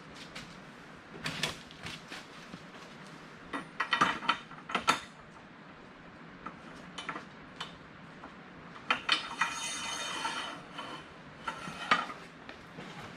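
Black steel pipe and threaded fittings clinking and knocking as they are handled. A longer metallic scrape with a ringing edge comes about two-thirds of the way in.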